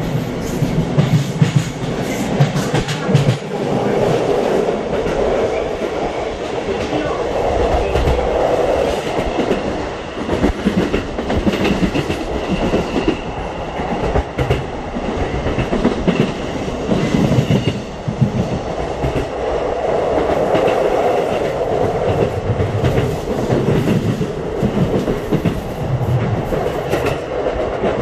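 Electric commuter train running along the line, heard from inside the carriage: a steady rumble of wheels on rail, with recurring low knocks every second or two.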